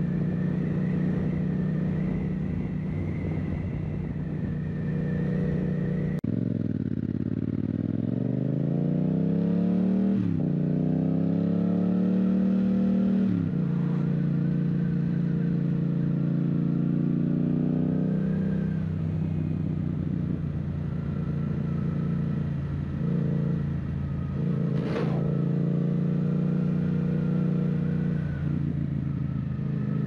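Yamaha Tracer 700's parallel-twin engine through an Akrapovic exhaust, heard from the saddle at a steady cruise. It then accelerates hard, the revs climbing with two upshifts in quick succession, before settling back to a steady cruise. Near the end the revs drop and pick up again with throttle changes.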